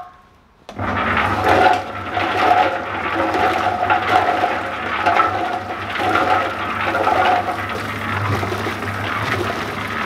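Electric concrete mixer starting up about a second in and running with a steady low hum, while a garden hose sprays water into the turning drum. The water is wetting compressed oak sawdust bricks so they break back down into sawdust.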